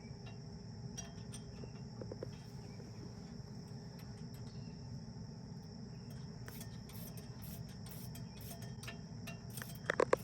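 Insects trilling in one steady high tone over a low rumble, with scattered light clicks and a short louder sound near the end.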